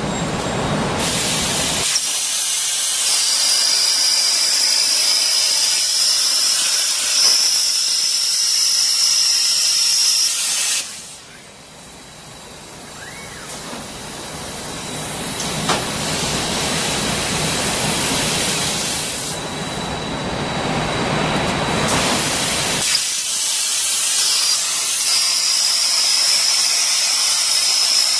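Plasma cutting torch hissing loudly, with a thin steady high whine over the hiss through much of it. The sound drops sharply about eleven seconds in and builds back up over the following seconds.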